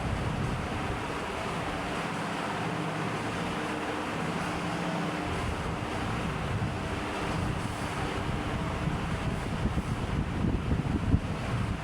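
Electric fan running steadily: a constant rush of moving air over a faint motor hum. Irregular low buffeting grows stronger in the last few seconds.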